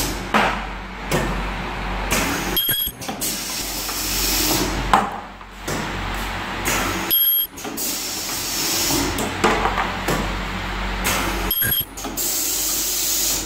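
Automatic ultrasonic plastic welding machine running with its rotary table and air-driven tooling: a steady hiss with swelling rushes of air. About every four seconds a brief high-pitched tone sounds with a short drop in the noise.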